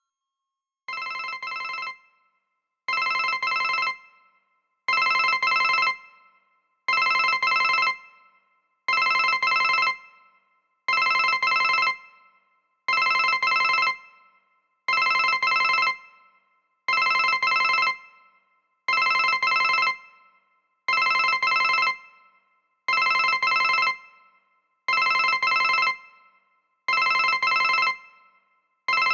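ZTE WeGo (S155) cell phone ringtone: a trilling ring about a second long, repeating every two seconds. It starts quiet and grows louder over the first three rings, then holds at full volume.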